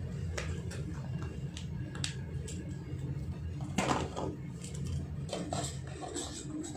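Bangles and jewellery boxes being handled and put away: scattered light clicks and clinks, with one louder knock about four seconds in, over a steady low hum.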